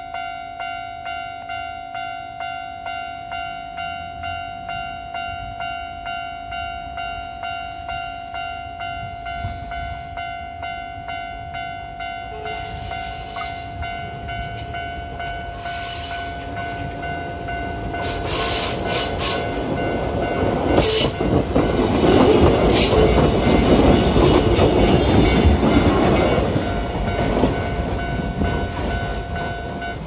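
Japanese level-crossing warning bell ringing steadily in a fast repeating chime while an electric train approaches. About two-thirds of the way in the train's running noise grows much louder as it passes close by, with sharp clanks of wheels over the rail joints.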